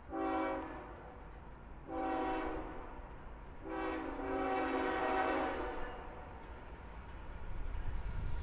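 Nathan K5HL five-chime air horn on a Union Pacific C45ACCTE locomotive sounding three blasts: two short ones, then a longer one of about two seconds. The locomotive's low rumble grows near the end as it approaches.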